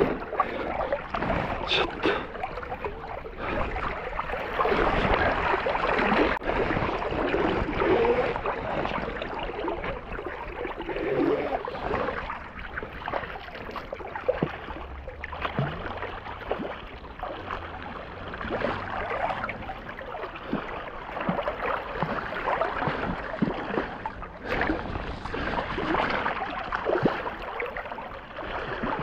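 Fast, shallow river riffle rushing steadily, with irregular splashes and sloshing in the water close by as a hooked rainbow trout is played near the surface.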